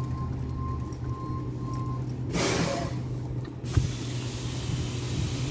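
Flatbed tow truck's engine running with a steady low hum. About two seconds in, a burst of air-brake hiss lasts just over a second.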